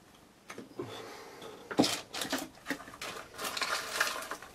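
Handling noise from small parts being moved at a workbench: a few light clicks and knocks, the sharpest a little under two seconds in, then a short stretch of rustling.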